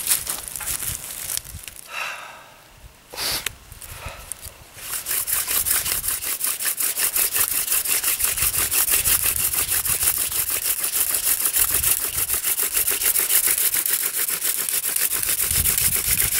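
Hand-drill friction fire: a Jerusalem artichoke spindle spun back and forth between the palms, grinding into a freshly cut notch in a white pine hearth board. A few irregular scrapes and knocks come first, then from about five seconds in a steady, fast rhythm of rubbing strokes.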